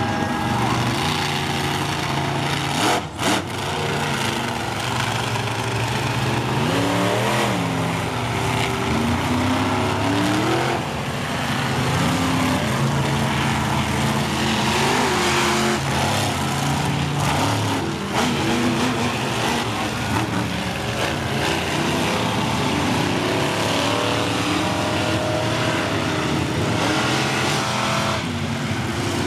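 Monster truck engines running and revving, rising and falling in pitch as the trucks drive, with a brief dropout about three seconds in.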